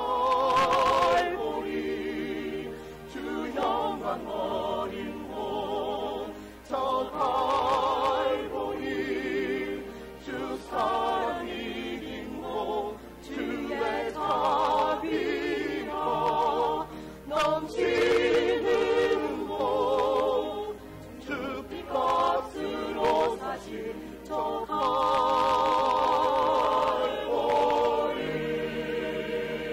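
Church choir singing a Korean Easter cantata song, phrase by phrase with short breaks, the held notes sung with vibrato.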